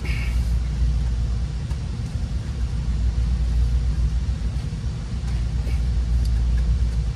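Steady low background rumble with no distinct events, and a couple of faint ticks near the end.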